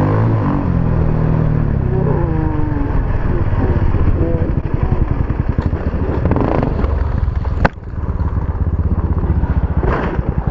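Dirt bike engine running hard and changing pitch as it is ridden and revved, heard from on the bike. A single sharp knock cuts through about three-quarters of the way in, and there is another knock near the end as the bike goes down in a crash.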